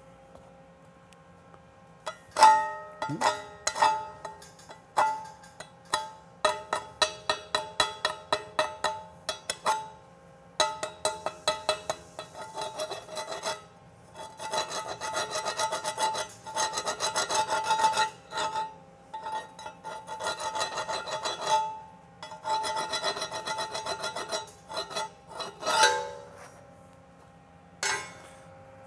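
Slag being cleaned off a fresh weld bead on a steel test plate. A chipping hammer strikes the bead repeatedly and each blow leaves the plate ringing. Several stretches of fast wire-brush scrubbing along the weld follow.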